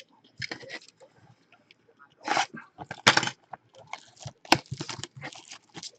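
Trading-card pack wrappers and packaging crinkling and tearing as the packs are opened. The sound comes as irregular crackling bursts with sharp clicks; the loudest bursts are about two and three seconds in.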